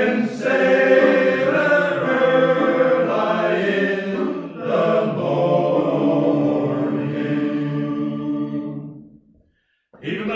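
Male voice choir singing unaccompanied in held chords, breaking off briefly about nine seconds in before starting again.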